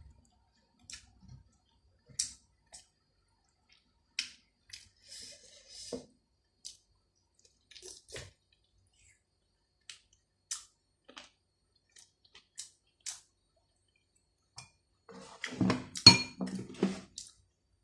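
Close-up eating sounds of a person eating rice and chicken: scattered wet mouth clicks and smacks while chewing. A denser, louder run of eating noise comes near the end.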